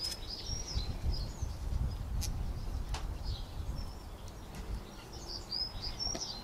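Small birds chirping in short, twittering calls with quick pitch slides, over a low rumble; two faint clicks a little after two and three seconds in.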